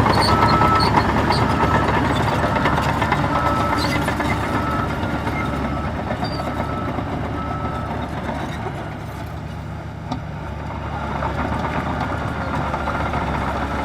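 Heavy diesel earthmoving machinery running, with a truck's reversing alarm beeping in a regular series through the first half. The engine sound eases off about two-thirds of the way in, then picks up again as the beeping faintly returns near the end.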